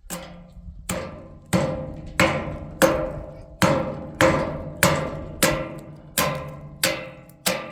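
A steady series of sharp, ringing strikes, about three every two seconds, each dying away before the next.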